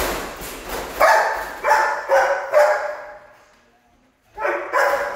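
A dog barking: four barks in quick succession, a short pause, then two more near the end, each echoing off the hard floor and walls of a large room.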